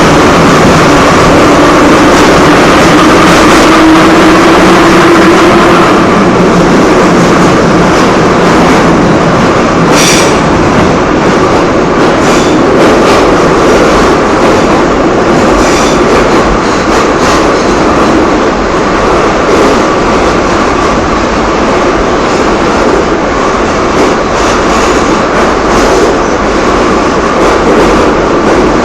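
Moscow metro train running between stations, heard from inside the carriage: a loud, continuous rumble and clatter of wheels on rail. In the first several seconds a steady hum sits under a slowly rising whine, and there is a single sharp click about ten seconds in.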